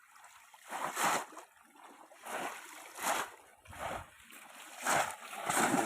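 Shallow water splashing in a series of separate splashes, about one a second.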